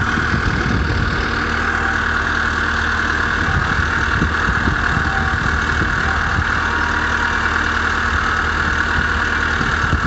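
An engine idling steadily, with a steady high whine running over it.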